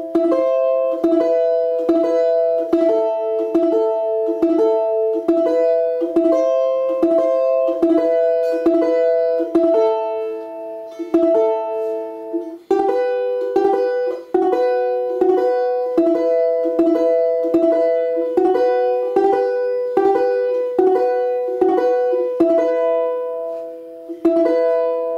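Prima balalaika played in the arpeggiato (perebor) technique: its strings plucked one after another in an even stream of ringing notes, about three a second, spelling out a simple melody over broken chords, with a change of harmony about halfway through.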